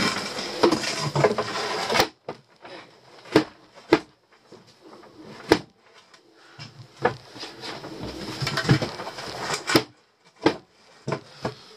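Wooden boards and battens being handled and set in place: scraping and rustling at first, then a string of separate sharp wooden knocks with softer scraping between them.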